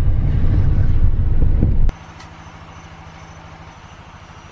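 Low rumble of a car driving, which cuts off abruptly about two seconds in, leaving a much quieter steady hum.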